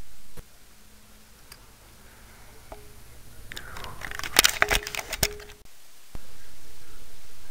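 Handling noise from a handheld camera: rustling and a quick cluster of sharp clicks and knocks a little past halfway, then a steady hiss after a sudden cut.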